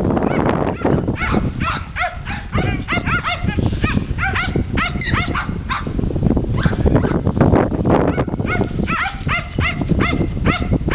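A dog barking in rapid, high, yipping volleys, several barks a second, while chasing goats, over a constant low rumble.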